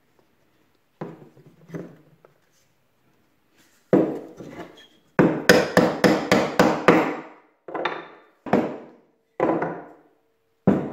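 Steel-headed hammer striking wooden rim blocks to drive them onto the spoke ends of a wooden wheel. A few light knocks of wood being handled come first, then about a dozen sharp blows: a quick run of about seven near the middle, then single blows a second or so apart.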